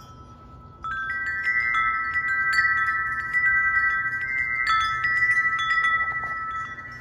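Wind chime ringing in the wind. About a second in, a gust sets it going, and several tuned notes are struck again and again and ring on over one another.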